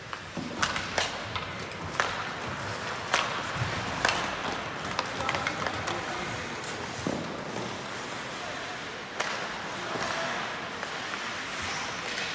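Ice hockey play in a rink: a string of sharp clacks from sticks and puck, most of them in the first five seconds, over a steady arena hum.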